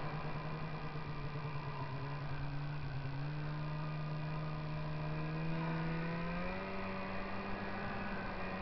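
Snowmobile engine running under way, its pitch stepping up about three seconds in and again near two-thirds of the way through, with a steady rush of track and wind noise.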